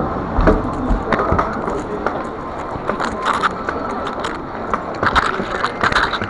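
Handling noise from a body-worn camera being jostled: irregular rubbing, scraping and knocking on the microphone, with a low thump about half a second in.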